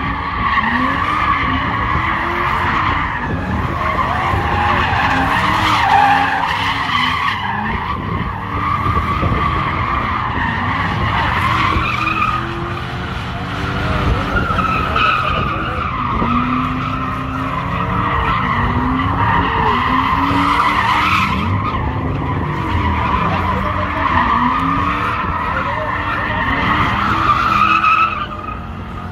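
A car drifting in circles, its tyres screeching steadily, with the engine revving up and down beneath the squeal.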